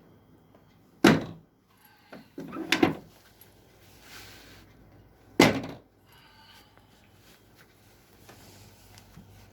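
Three heavy thumps from a chiropractic sacrum adjustment on the treatment table: one about a second in, a second, rattling one around two and a half seconds, and a third about five and a half seconds in.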